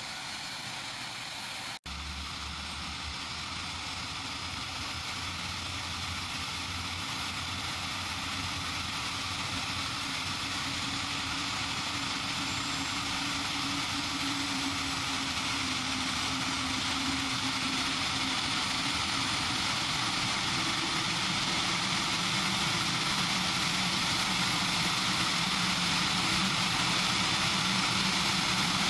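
AgustaWestland HH-101 Caesar helicopter starting up on the ground, its turbine engines and rotors spooling up. The sound grows steadily louder as the rotors gather speed.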